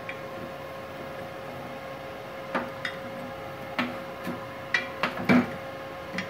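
A steady hum from the switched-on welding machine, with a run of about eight clicks and knocks from about halfway in as the MIG torch and its cable are handled and set down on the metal bench; the loudest knock comes near the end.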